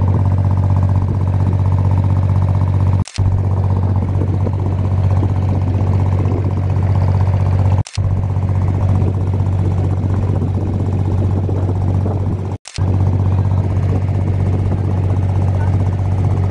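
A boat engine running steadily, heard on board a creek water taxi over its wake, with a strong low hum. The sound drops out for a moment three times.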